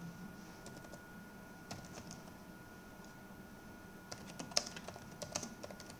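Computer keyboard keystrokes: a few scattered taps at first, then a quicker run of typing in the last two seconds.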